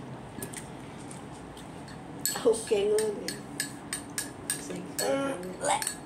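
A girl's voice making two short wordless vocal sounds with a gliding pitch, over a run of sharp clicks and smacks through the second half, several a second. The clicks are lip smacks as she sucks and licks food off her fingers while eating with her hands.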